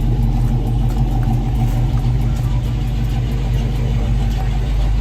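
Car engine idling with a deep, steady rumble.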